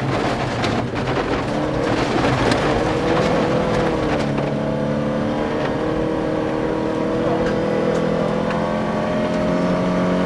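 Volvo 240 rally car's engine running hard under load, heard from inside the cabin on a gravel stage, with loose gravel clicking against the car in the first few seconds. From about four seconds in, the engine note climbs slowly as the car accelerates.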